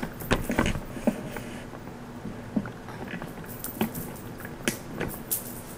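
Handling noise close to the microphone: scattered clicks, knocks and rustles, the strongest about a third of a second in, about a second in, and near the end.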